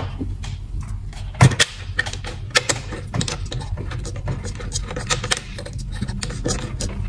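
Irregular small clicks and taps of hands handling the purge valve solenoid, its screws and the surrounding plastic parts under a car's hood, over a steady low hum.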